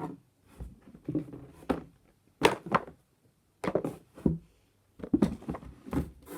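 Fidget toys being handled and set down, making a series of irregular knocks and clatters with short pauses between them.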